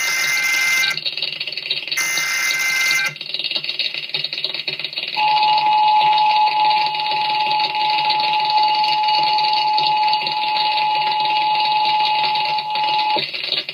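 Emergency Alert System tornado-warning header: two short screeching bursts of SAME data, then about five seconds in the steady attention tone starts. The tone holds for about eight seconds and cuts off shortly before the end.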